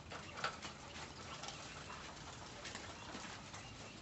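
Faint, scattered short calls from caged birds over a low steady background.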